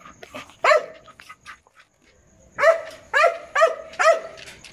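A dog barking: one bark, a pause of about two seconds, then four quick barks in a row.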